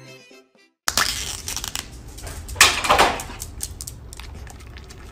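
Background music cuts off just under a second in, then a run of scratchy, rustling noises over a low steady hum, loudest about three seconds in.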